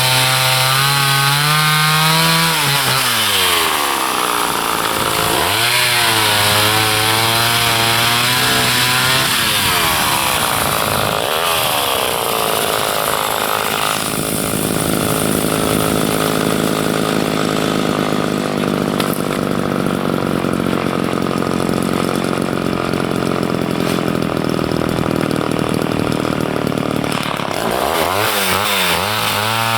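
Chainsaw engine revving up and dropping back twice, then running at full throttle under load while cutting through wood for about twelve seconds, before revving up again near the end.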